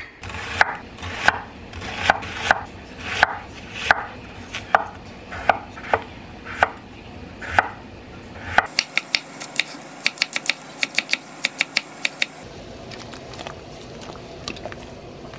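A steel kitchen knife pulled again and again through a handheld pull-through knife sharpener, about eleven scraping strokes. Then comes quick knife slicing of potato on a wooden cutting board, about four or five cuts a second. Near the end, a pan of broth at a steady boil.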